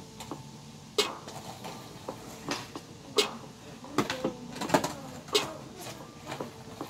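Skateboard on a concrete sidewalk: the wooden deck popping, flipping and slapping down, with the wheels clacking as the rider lands tricks. There is a string of sharp clacks, the biggest about a second in and four more between three and five and a half seconds in.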